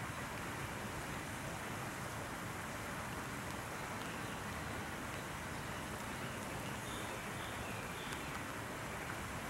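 Steady outdoor ambient noise: an even hiss with no distinct events, and a few faint high chirps in the second half.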